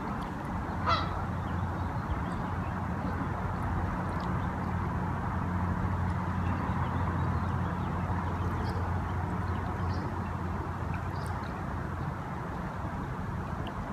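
Geese honking: one sharp honk about a second in, then a few faint calls, over a steady rushing background noise.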